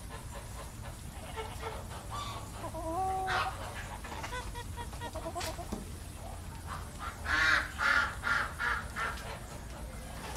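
White domestic geese calling: a few scattered calls in the first half, then a run of about five loud honks in quick succession about seven seconds in.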